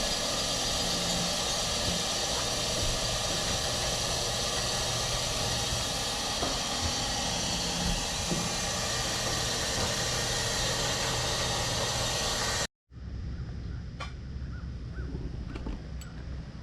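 Steady, loud engine noise for most of the time. It cuts off abruptly, and a few crow caws follow against quieter background.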